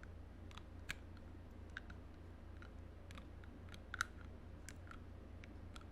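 Teeth biting and chewing on the plastic end of a toothbrush close to the microphone: faint, irregular sharp clicks, with two louder ones about a second in and about four seconds in.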